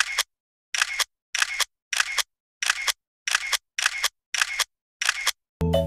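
A cat licking and smacking at a Ciao Churu lickable treat: short separate smacks, about one every half second or so with dead silence between them. Music starts near the end.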